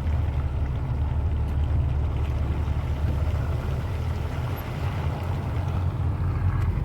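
Steady low rumble of a moving vehicle: engine and running noise.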